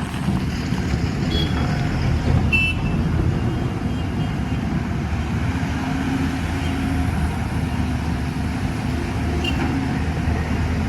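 Tracked excavator's diesel engine running steadily with a continuous low rumble. A brief high-pitched squeal or beep sounds about two and a half seconds in.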